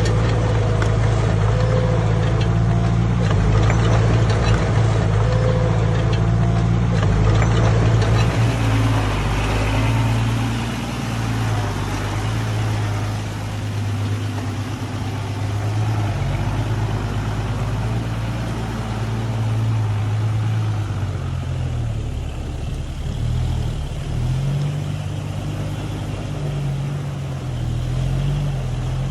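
Heavy diesel engine of earth-moving machinery running, with repeated clanks over the first several seconds; from about two-thirds of the way in the engine pitch rises and falls as it is revved.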